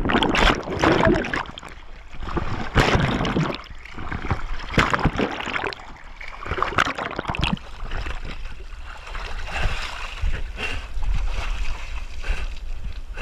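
Water sloshing and splashing around a camera at the water's surface, in irregular surges that are strongest in the first half.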